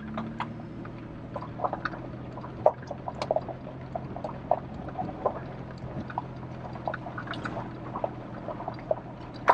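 Truck engine running at low speed, heard from inside the cab as a steady low hum, with frequent irregular clicks and knocks from the truck creeping over the rough dirt trail.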